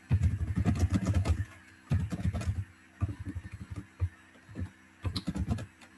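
Typing on a computer keyboard: quick runs of keystroke clicks in several bursts, with short pauses between them.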